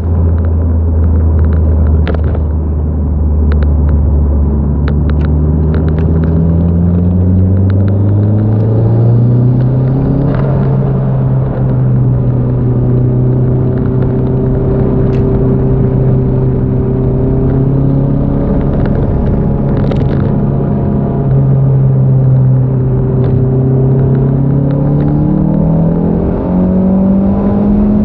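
Turbocharged Toyota MR2 engine running hard, its revs climbing over the first ten seconds, holding steady for a long stretch, then climbing again near the end. A string of sharp cracks cuts through while the revs rise, typical of the misfire under high boost that this car has.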